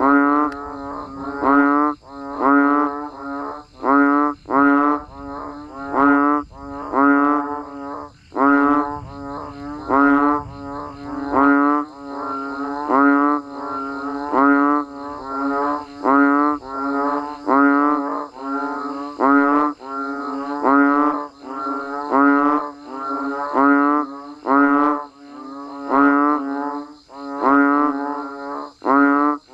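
A chorus of banded bullfrogs (Kaloula pulchra) calling, one pitched call after another at about one a second.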